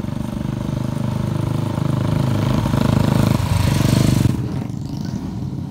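Several motorcycle and scooter engines running as a group of riders approaches, growing louder until about four seconds in, then easing off.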